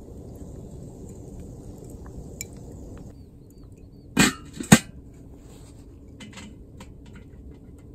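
Metal lid of a small charcoal kettle grill set down on the bowl with two clanks about four seconds in, over a faint steady background noise. A few light clicks follow as the vent on the lid is turned.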